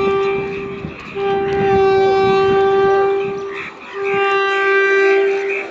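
Indian Railways WAP4 electric locomotive's horn sounding long blasts. A blast ends about a second in, then two more follow, each about two seconds long, with short breaks between.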